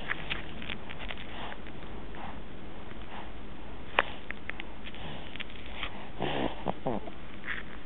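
A sleeping baby snoring, with repeated snuffly breaths and a short pitched, wavering snore about six seconds in. A sharp click about four seconds in.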